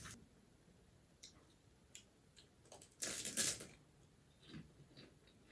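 A crisp fried pani puri shell crunching loudly and briefly as it is bitten about three seconds in. Before it come a few faint clicks from handling the puri, and after it come soft chewing sounds.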